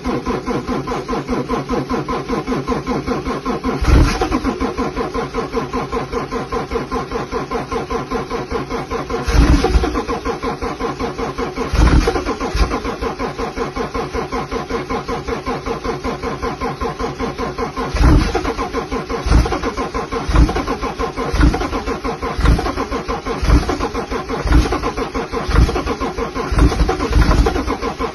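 BMW engine running in the first half-minute after a cold start at -17°, with a fast, even pulsing. Loud short thumps break in now and then, coming about once a second in the second half.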